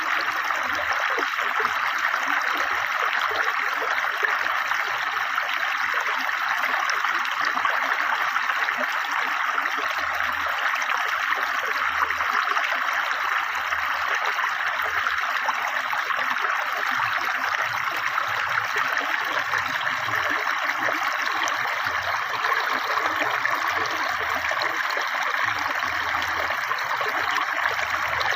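River water flowing fast over stones, a steady babbling rush.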